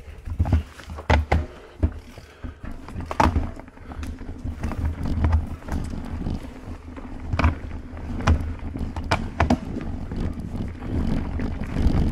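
Mountain bike rolling along a root-strewn dirt trail: a steady low rumble of tyres and wind on the microphone, broken by sharp knocks and rattles, about eight of them, as the bike hits roots and rocks.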